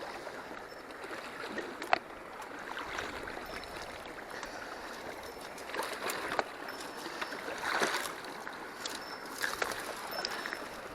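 Mountain stream running over stones, with a few louder splashing surges and a single sharp click about two seconds in.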